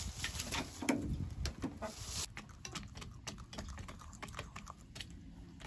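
Rhode Island Red hens pecking feed from a galvanized metal feeder pan: their beaks strike the pellets and metal in a fast, irregular run of sharp ticks, thickest from about two seconds in.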